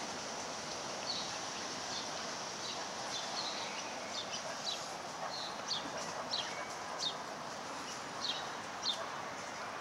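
Small birds chirping: short high chirps repeated irregularly, over a steady outdoor hiss.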